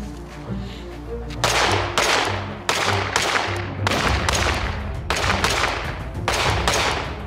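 Aeonic Arms Alpha Comp steel-frame pistol firing about ten shots, mostly in quick pairs, each crack ringing out afterward. Background music with a steady low beat plays underneath.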